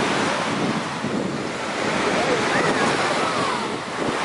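Ocean surf washing steadily onto the beach, with wind rumbling on the microphone and faint voices in the background.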